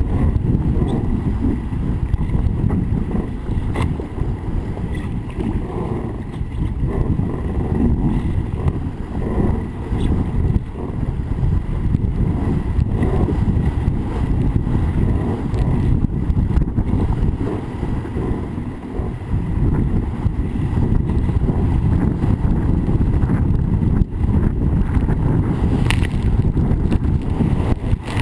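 Wind buffeting the microphone on a sailing dinghy under way, over the rush and splash of water along the hull. A loud, unsteady, low noise.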